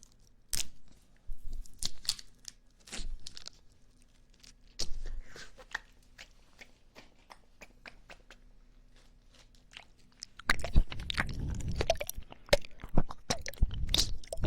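Close-miked mouth sounds: a few scattered sharp clicks and smacks, then from about ten seconds in a dense crackling and crunching as popping candy pops and is chewed in the mouth.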